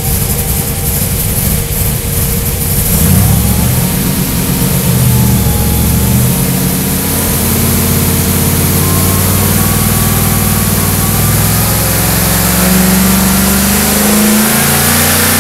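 Whipple-supercharged LSX V8 on an engine dyno, fitted with the smaller 3 7/8-inch blower pulley for more boost: running steadily, then from about three seconds in getting louder and climbing slowly and steadily in revs under load, a dyno pull, with a whine rising in pitch along with it.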